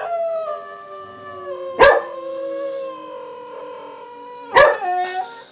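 Dog howling in long drawn-out notes that slowly fall in pitch, with two short, loud yelps about two seconds in and again near the end.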